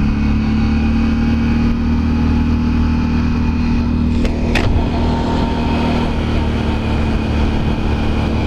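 Can-Am Renegade 1000 ATV's V-twin engine running at a steady pace while riding, with a brief sharp click about four and a half seconds in.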